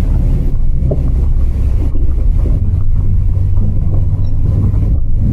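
Steady low engine rumble of a vehicle, muffled and buffeted by wind noise on the microphone.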